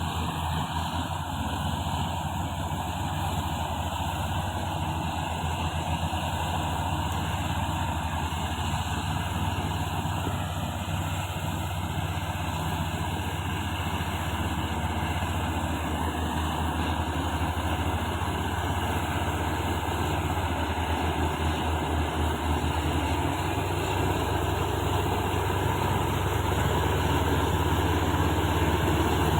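Komatsu D155A-6 bulldozer's six-cylinder diesel engine running steadily with a low, even drone, growing a little louder near the end.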